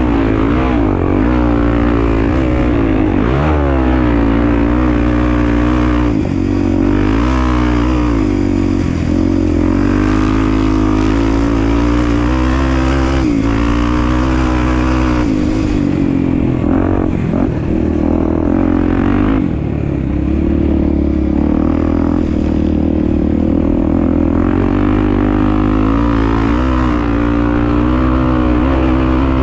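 Honda Tornado enduro motorcycle's single-cylinder four-stroke engine running under way, its pitch rising and falling over and over as the throttle is opened and closed.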